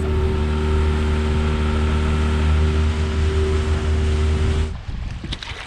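Outboard motor on an inflatable dinghy running steadily at speed, its pitch held constant, over the hiss of water along the hull. The engine sound cuts off abruptly near the end.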